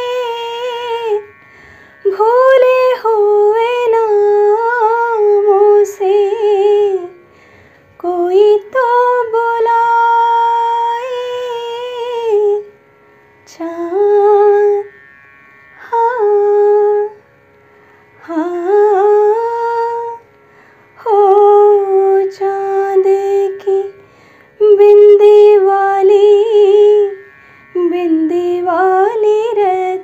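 A woman singing solo and unaccompanied, in a Hindi song. She holds long, melodic phrases with gliding ornaments, separated by short breath pauses of about a second.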